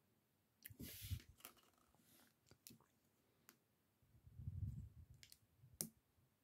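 Faint clicks and light rattling of small plastic LEGO pieces being handled and pressed together, with a brief rustle about a second in and a dull low bump of handling noise a little past the middle.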